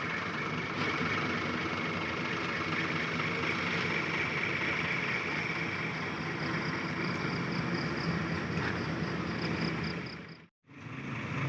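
Diesel bus engine idling steadily, with a faint high ticking about three times a second in the second half. The sound drops out for a moment near the end.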